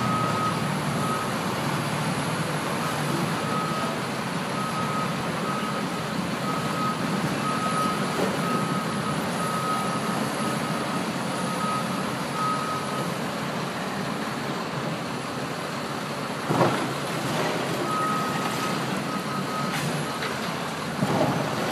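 Excavator working on demolition, its engine running steadily while a backup alarm beeps about once a second, stopping for a few seconds and starting again. Two heavy thumps stand out, one about two-thirds of the way in and one near the end.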